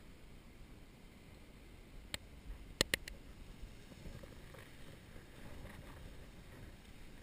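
Soft footsteps walking in sand under a low rumble on the microphone, with three sharp clicks: one about two seconds in and two close together just before three seconds.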